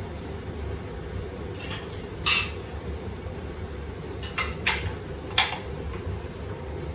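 Crockery and cutlery clinking during washing up by hand: about five sharp clinks, the loudest a little over two seconds in, over a steady low hum.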